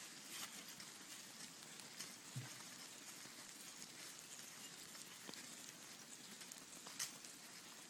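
Faint steady hiss with a few scattered taps and one soft thud: the sandalled footsteps of monks in procession walking down stone steps.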